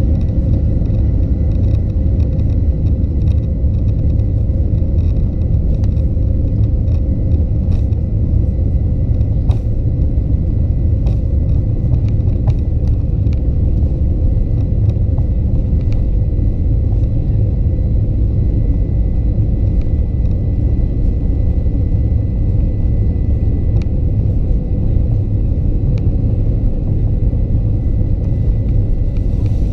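Boeing 737-900's CFM56-7B jet engines running steadily at low taxi thrust, heard inside the cabin as a deep rumble under a steady high engine whine, with faint clicks now and then as the airliner rolls onto the runway.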